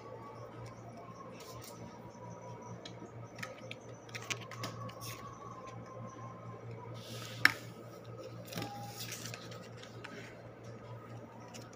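Crinkling and clicking of sealed plastic bullion packaging as small gold bars are handled and turned over, with one sharp click about seven and a half seconds in, over a low steady hum.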